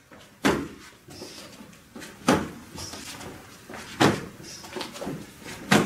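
Four calf kicks landing on a karate partner's leg, one sharp slap of shin against leg about every two seconds, each received with the knee turned toward the kick.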